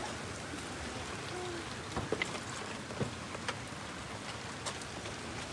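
Steady rain falling on wet pavement, with a few louder drips scattered through it.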